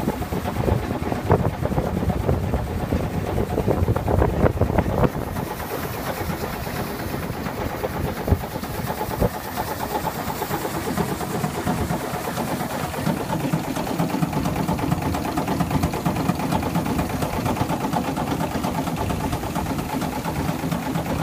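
A boat's engine running steadily, with wind buffeting the microphone for the first five seconds or so.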